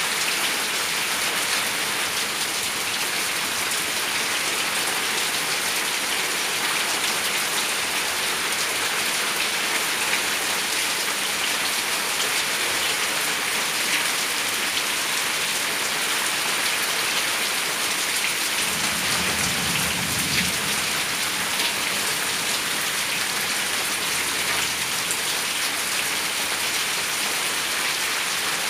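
Heavy rain falling steadily on the yard and roof: an even hiss. A brief low rumble sounds about two-thirds of the way through.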